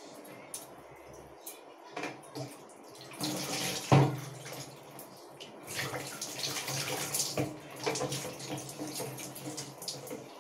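Rice water splashing and squelching as it is worked by hand through wet hair, coming in uneven bouts.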